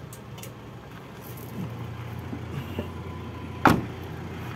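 Toyota Kijang's 1.5-litre four-cylinder engine idling smoothly with a steady low hum. About three and a half seconds in there is a single loud clunk.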